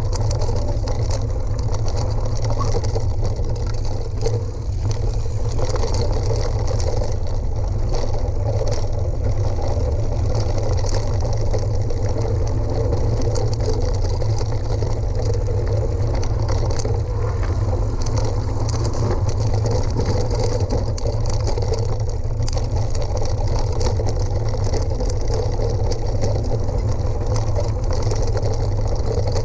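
Steady low rumble and rattle of a vehicle travelling over a rough gravel track at about 20 km/h, heard from a camera mounted on it, with small crackles from the stones underneath.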